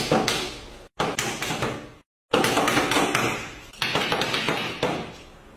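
A few sharp knocks about a second apart, each ringing and fading out, with short cuts of dead silence between them.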